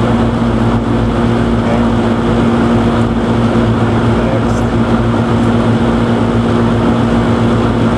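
Outdoor air-conditioner condenser unit running, its fan blowing air in a steady rush over a constant low electrical hum.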